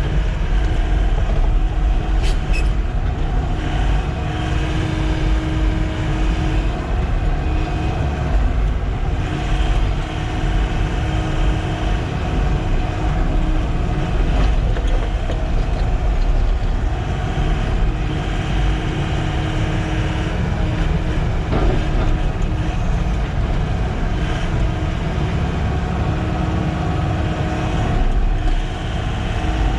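Sany SY-95 excavator's diesel engine running steadily under working load, with a hydraulic whine that comes and goes as the machine spreads and shapes fill.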